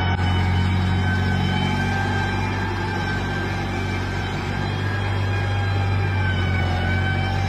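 New Holland tractor's diesel engine running at a steady speed, a deep constant drone with a faint steady whine above it.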